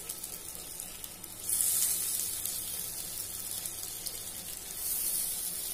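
Soya kebabs shallow-frying in hot mustard oil in a non-stick pan: a steady sizzle that swells louder about a second and a half in and again near the end, as further kebabs go into the oil.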